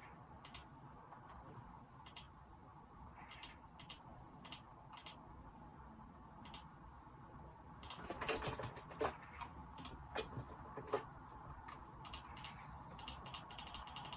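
Computer keyboard typing, picked up faintly by a phone microphone: scattered single keystrokes, a quick run of keys about eight seconds in, and another cluster near the end.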